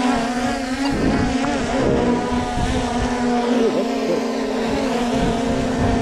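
Small quadcopter drone hovering nearby, its propellers making a steady buzzing whine that shifts in pitch a few times as it adjusts. Wind rumbles on the microphone underneath.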